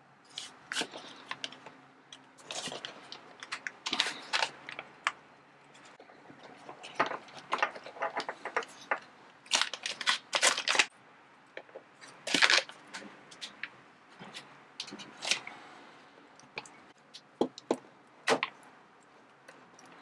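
Handling noise of tools being fitted into a stiff leather sheath: a plastic bag around a multitool crinkling and small metal tools clicking against each other and the leather, in irregular clicks and rustles.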